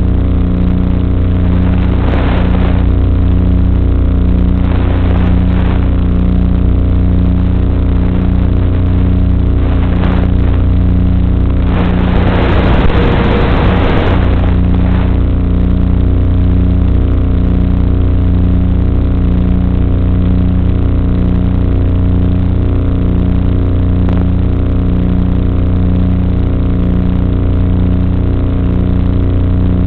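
Electric motor and propeller of an FPV drone running at a steady throttle, a loud even hum heard through the onboard camera's microphone. Brief bursts of hiss come and go, the longest about twelve to fourteen seconds in.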